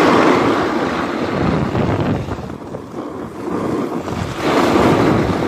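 Wind rushing over the microphone together with the swish of skis sliding on packed snow during a downhill run, louder near the start and again near the end.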